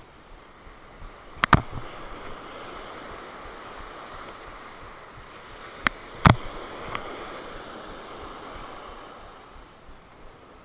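Surf washing on the shore with wind on a microphone mounted on the fishing rod. Sharp handling clicks come from the rod and spinning reel: a close pair about a second and a half in, then a loud one a little after six seconds.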